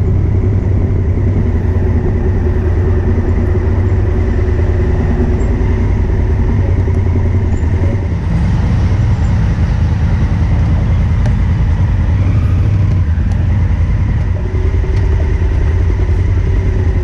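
Adventure motorcycle engine running at town speed, a steady low rumble, heard from a camera on the rider.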